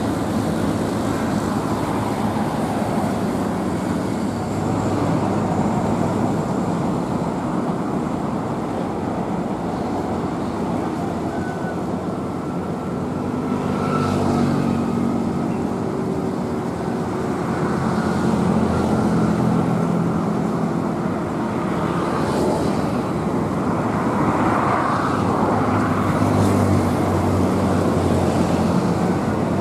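Steady road traffic noise, with the low hum of heavy engines swelling and fading several times.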